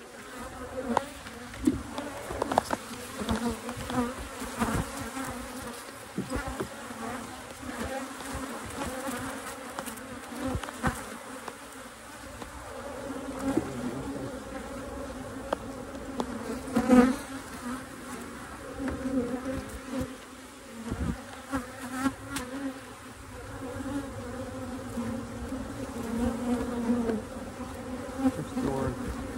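Honey bees buzzing steadily around an opened hive, with scattered clicks and knocks; the loudest knock comes about seventeen seconds in.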